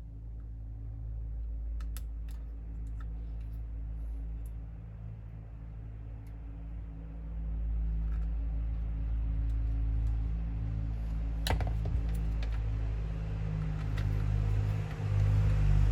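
Scattered light plastic clicks of a smartphone being handled and its back cover fitted during reassembly, over a low steady rumble that grows louder toward the end.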